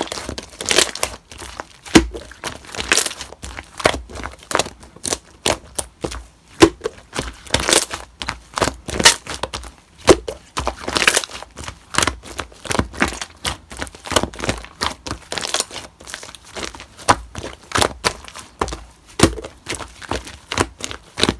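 Slime being squeezed, stretched and pressed by hand, giving irregular crackling pops and clicks, some sharp and loud, with short quiet gaps between.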